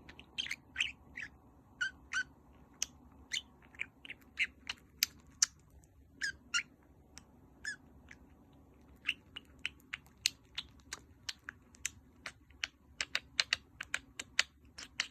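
Budgerigar chattering in a rapid, irregular run of short, sharp chirps and clicks, several a second.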